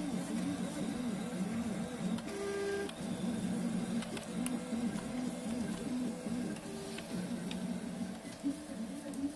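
RepRap Prusa I2 3D printer printing: its stepper motors whine in quick, wavering tones that keep shifting in pitch as the axes move, twice holding a higher note briefly.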